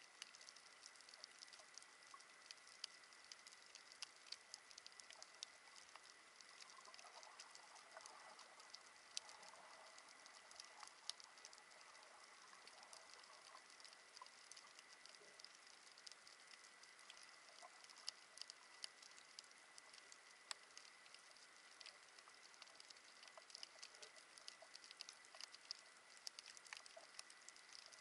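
Faint underwater crackle of snapping shrimp on a coral reef: many small, sharp clicks at random, with a faint steady high whine behind them.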